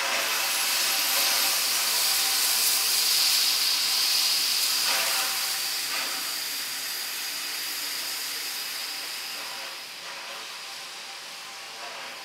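R class Hudson steam locomotive R711 standing with steam hissing steadily from it, a loud continuous hiss that eases off near the end.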